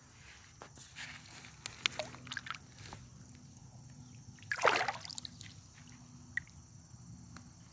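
Water sloshing and splashing, with one louder splash about four and a half seconds in and small scattered clicks and rustles between.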